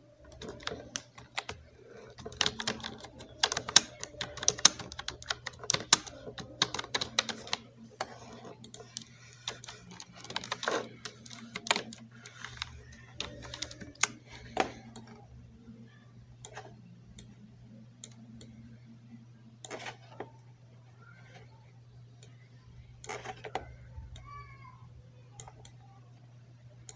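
Typing on a computer keyboard: a quick run of keystrokes for about the first fifteen seconds, then scattered clicks, over a steady low hum.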